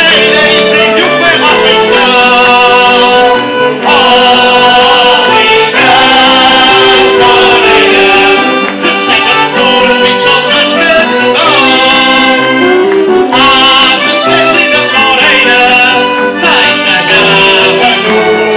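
Live band music for a Portuguese carnival dance, led by accordion with strings, playing steadily without a break.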